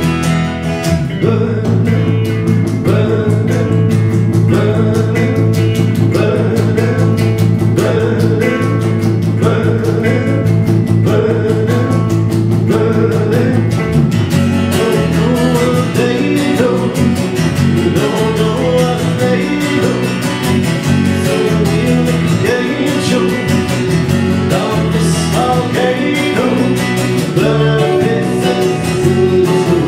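A small band playing live: strummed acoustic guitar, electric guitars and electric bass guitar. The bass holds a steady low note at first, then starts moving about halfway through.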